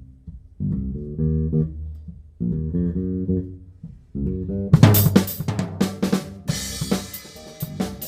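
Big band music: three short phrases of low pitched instruments with pauses between them, then about five seconds in the drum kit comes in with cymbal crashes and quick snare and bass drum strokes under the band.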